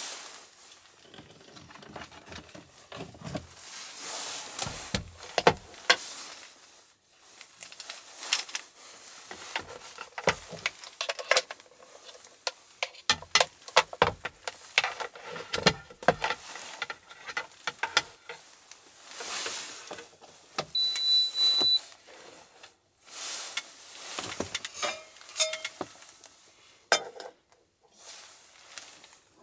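Hands setting up a portable induction cooktop on a wooden table: a run of knocks, taps and rustling as it is handled and its cord laid out. About two-thirds of the way through, the cooktop gives one high electronic beep lasting about a second.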